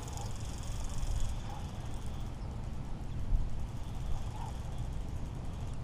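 Wind on the microphone, a steady low rumble, with a faint high hiss that fades out about a second in.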